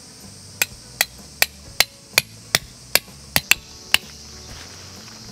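A hammer driving a metal tent peg into the ground: about ten sharp, ringing metallic strikes at a little over two a second, the last two close together, stopping about four seconds in. A steady insect buzz runs underneath.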